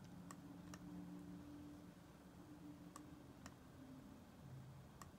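Computer mouse clicking, five faint clicks: two pairs about half a second apart, then one near the end, over a faint low hum.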